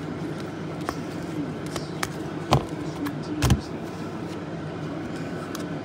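A steady low hum with scattered light clicks and two dull thumps, one about two and a half seconds in and one about a second later.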